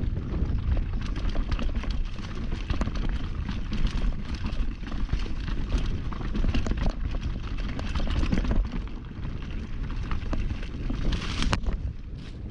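Mountain bike descending a rough downhill dirt trail at speed: wind rushing over the microphone, with a steady stream of knocks and rattles from the tyres and bike over the ground. A short hiss near the end.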